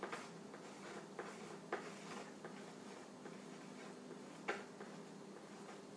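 Faint, light taps and clicks of paintbrushes and paint things being handled on a table, a few scattered ones with the loudest about four and a half seconds in, over a low steady room hum.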